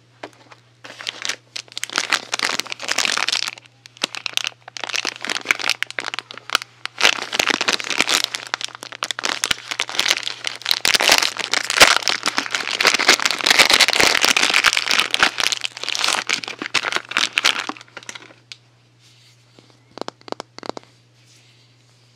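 Packaging crinkling and crackling as it is handled and unwrapped, dense and continuous for most of the time, then tapering to a few scattered crackles near the end, over a steady low hum.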